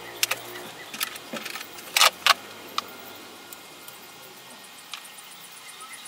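Scattered sharp clicks and taps from small cedar box pieces and glue tools being handled on a plastic-covered worktable, the two loudest about two seconds in. Crickets chirp faintly in an even pulsing rhythm from about halfway.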